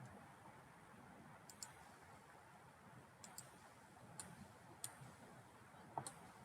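Computer mouse clicking quietly, about seven sharp clicks, some in quick double-click pairs, over faint room hiss.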